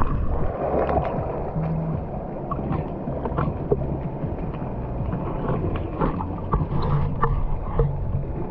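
Water sloshing and splashing in a thermal spring pool, a steady wash of noise with scattered small clicks and splashes.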